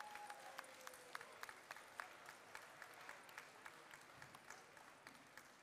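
Audience applauding, individual claps distinct, thinning out toward the end.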